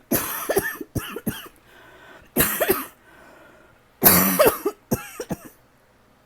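A person coughing in repeated hard fits, about three clusters of coughs a couple of seconds apart, the loudest about four seconds in. It is a persistent cough from a throat tickle that will not go away.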